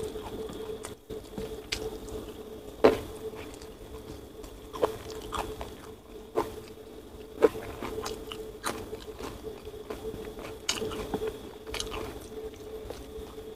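Close-miked chewing and mouth sounds of a person eating rice with fish and petai beans by hand, with wet smacks and sharp clicks about once a second. The loudest come about three seconds in and again about seven and a half seconds in.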